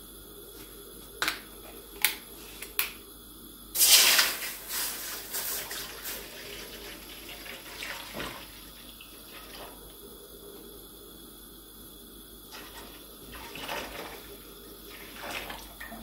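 Milk poured from a plastic jug into a wide stainless-steel pan: a loud splash about four seconds in, then a pouring gurgle that tapers off over the next few seconds. Before it come three sharp clicks as the jug's cap is worked open.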